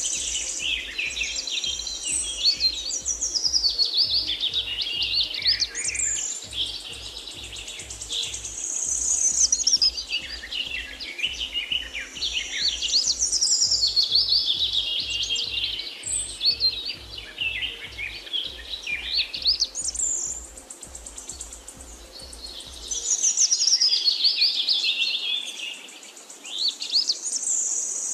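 Songbirds singing: a dense, continuous chorus of high chirps and warbling phrases. A low, regular pulsing sits underneath and stops about 23 seconds in.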